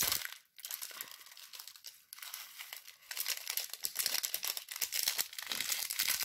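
Small plastic packet crinkling as it is opened and shaken out, with pink sprinkles falling onto slime in a glass dish. It is a dense, crackly rustle of many tiny clicks, easing briefly twice.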